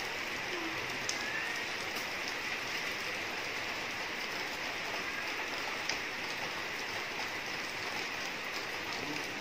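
Steady rain falling on wet paved ground, an even hiss with a few sharper drop ticks.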